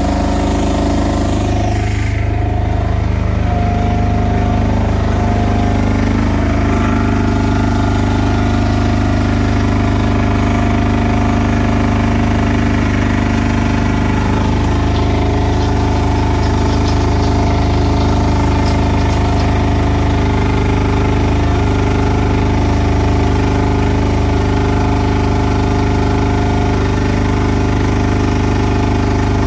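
Mud Hog mortar mixer's engine running steadily at constant speed while the mixer's paddles churn a batch of hempcrete.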